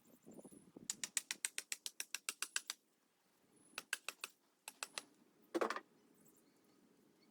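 A rapid, even run of sharp clicks, about nine a second for under two seconds, followed by a few shorter clusters of clicks and one louder knock.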